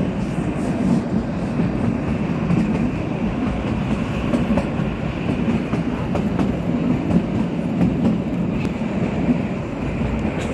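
Kalka–Shimla narrow-gauge toy train running, a steady rumble with scattered faint clicks of the wheels on the track.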